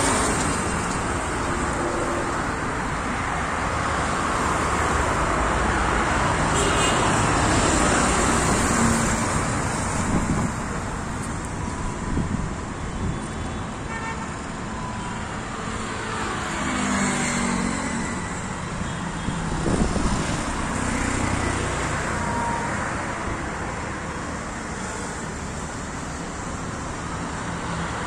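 Road traffic passing by, a steady rush of vehicles that swells and fades as they go past, with one louder pass about twenty seconds in.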